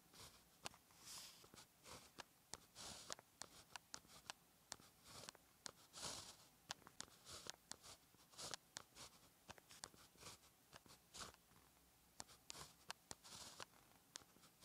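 Fine-tipped pen writing characters on paper: faint, close-up scratching strokes broken by many sharp little ticks at an uneven pace.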